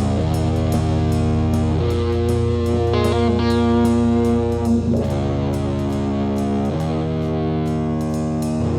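Instrumental stretch of a rock song: electric guitar holding chords that change every two seconds or so, over drums with steady cymbal hits.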